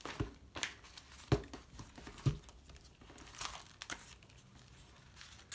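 Crinkling and rustling of a plastic sleeve and paper as a photobook album is opened and its inclusions handled. A few sharp taps of the cover and pages fall in the first couple of seconds.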